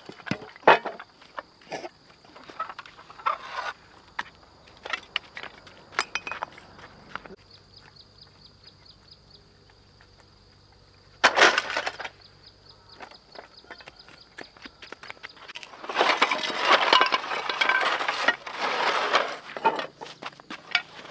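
Hoes scraping packed dirt while broken fibre-cement roofing sheets clatter and clink as they are dragged and dropped. Scattered knocks come first, then a louder clatter about eleven seconds in, and a long stretch of dense scraping near the end.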